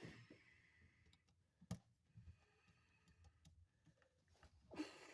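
Near silence with a few faint clicks and taps from handling a wall receptacle and its wires; a sharper click comes a little under two seconds in and another near the end.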